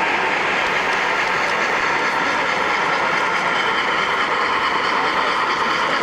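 O gauge model of a Norfolk and Western articulated steam locomotive, No. 1218, running slowly along three-rail track, giving a steady, unbroken running noise.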